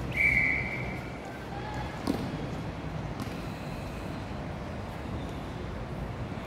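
Netball umpire's whistle: one short steady blast lasting under a second, followed about two seconds in by a single sharp knock.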